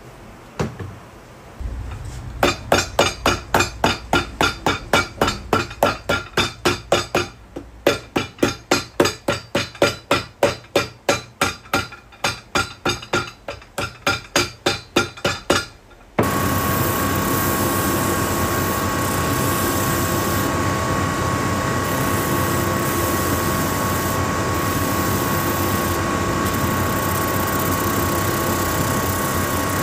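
A hammer striking a boot's freshly glued white wedge sole to set it, two to three blows a second with a short pause about halfway. About sixteen seconds in it gives way abruptly to the steady running hum of a shoe finishing machine's sanding belt.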